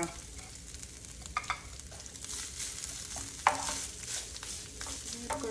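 Grated coconut frying in hot coconut oil in a nonstick pan, sizzling steadily, while a wooden spatula stirs and scrapes it to roast it toward reddish-brown. There are a few sharper knocks of the spatula against the pan, the loudest about three and a half seconds in.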